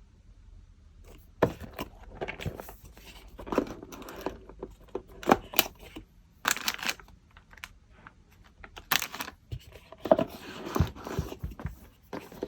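A jigsaw puzzle box and its packaging being handled and opened: scattered taps and clicks with short bursts of rustling and crinkling.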